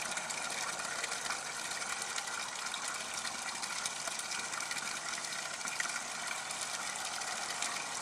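Aquaponics bell siphon draining a grow bed: water running steadily down the standpipe with a fine crackle of bubbles as air is drawn in, while the bed's level falls toward the bottom of the snorkel that will break the siphon.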